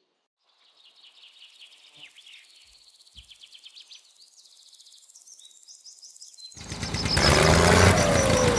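Faint, rapid high chirping of small birds over a quiet outdoor background. About six and a half seconds in, a much louder, dense sound with a steady low drone cuts in suddenly and covers everything.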